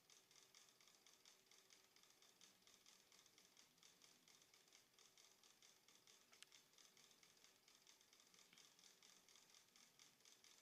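Near silence: faint steady hiss of the recording, with one small click about six and a half seconds in.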